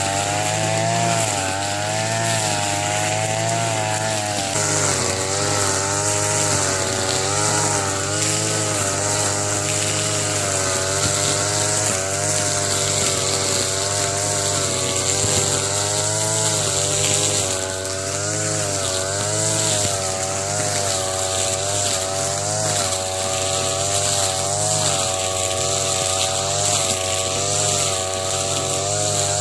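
Two-stroke brush cutter running at working speed while cutting thick grass, its engine note dipping and rising again and again as the head meets the grass.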